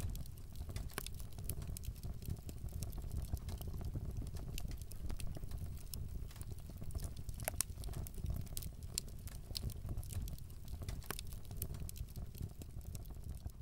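Crackling with scattered sharp pops over a low rumble, the tail of a fire-burst sound effect, fading out at the very end.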